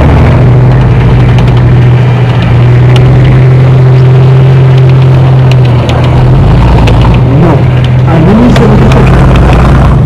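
T-34 tank's V12 diesel engine running loud and steady as the tank drives past. The revs rise briefly about eight seconds in.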